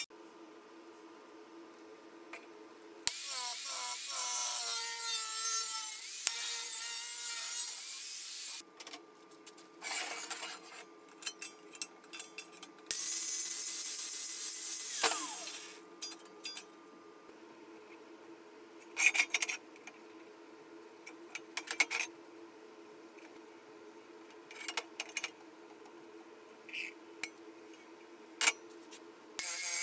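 Hand-tool work on a thin sheet-steel stove body: two long stretches of rasping, scraping strokes, then scattered sharp clanks and taps as the steel parts are handled.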